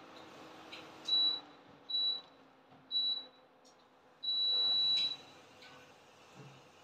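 Electronic beeps, one high tone: three short beeps about a second apart, then one longer beep.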